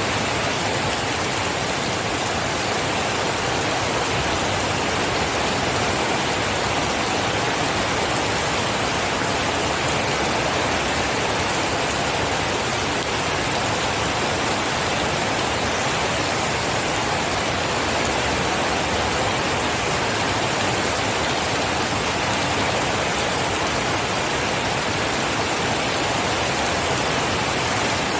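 Steady rain falling, an even unbroken hiss with no thunder or separate drops standing out.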